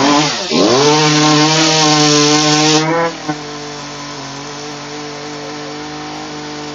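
Small gas-powered top-handle carving chainsaw running at high throttle, its pitch dipping briefly and climbing back, then dropping abruptly about three seconds in to a quieter, steady lower speed.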